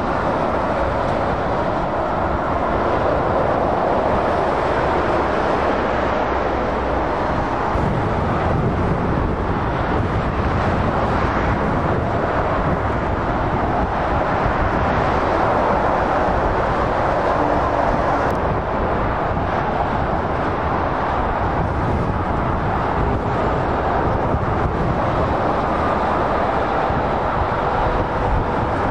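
Steady motorway traffic noise: tyre roar and diesel engines of articulated lorries and cars passing at speed, an unbroken rush with no single vehicle standing out.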